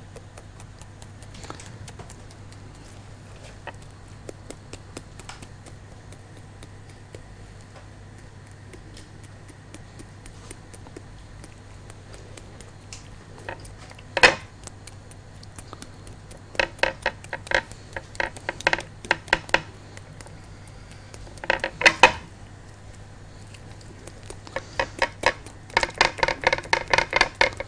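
Knife tip stabbing repeatedly into a raw whole chicken, making holes for the marinade, clicking against the ceramic plate beneath: scattered single clicks, one sharp knock about halfway through, then quick runs of rapid taps, densest near the end. A steady low electrical hum runs underneath.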